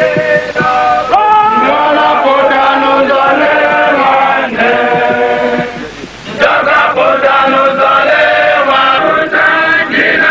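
A group of voices singing a chant-like song together, held notes moving from pitch to pitch; the singing drops away briefly about six seconds in.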